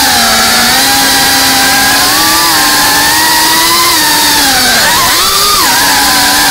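GEPRC Cinelog35 FPV drone's motors and propellers buzzing, heard through the onboard camera's microphone over a constant hiss of air. The pitch wavers with the throttle and swoops sharply down and back up several times near the end.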